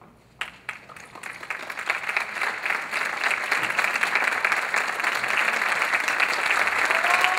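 Concert audience applauding at the close of an orchestral piece: a few scattered claps about half a second in, quickly thickening into full applause that keeps growing louder.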